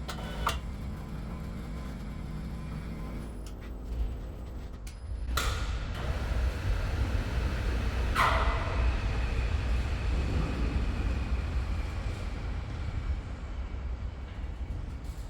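Diesel engine of a Franna pick-and-carry mobile crane running steadily as the crane is driven into position. Two brief, sharp, louder sounds come about five and eight seconds in.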